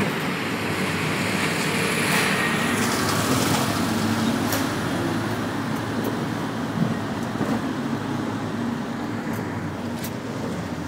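Steady engine and road noise of a songthaew pickup-truck taxi, heard from inside its covered rear passenger bed while it drives, with a few brief clicks or rattles.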